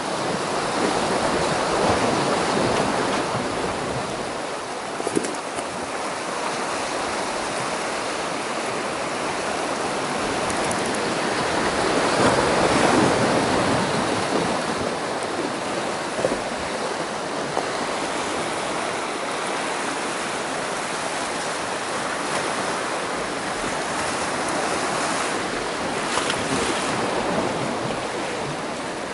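Sea surf washing against the rocks below, a steady rushing that swells and eases, loudest about twelve seconds in.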